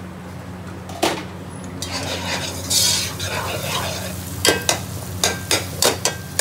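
A long metal spoon stirring and scraping chicken masala as it sizzles in a heavy black pot on a gas burner. From about halfway the spoon clinks sharply against the pot about four times a second, over a steady low hum.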